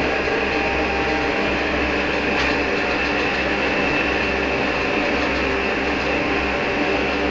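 Homemade heater burning used motor oil, running with a steady, even noise and a few steady hums underneath.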